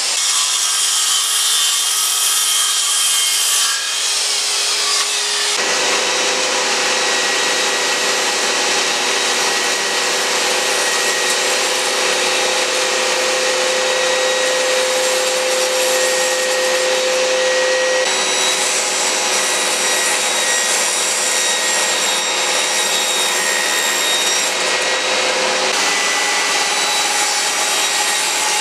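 Makita circular saw running and cutting through a plywood panel; about five seconds in it gives way to a Makita table saw, its blade cutting small pine boards over a steady motor note that runs on to the end.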